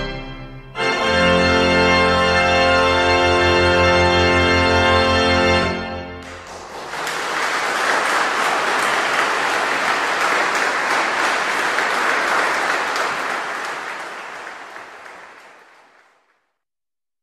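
Closing chords on the 1805 Carlo Bossi pipe organ: a chord, a brief break, then a long full chord with deep bass that stops about six seconds in. Audience applause follows and fades away near the end.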